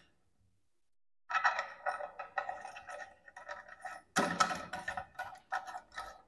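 Pillar tap's fixing nut being screwed up by hand from under a glass wash basin: a rapid, irregular run of small clicks and rattles, starting about a second in.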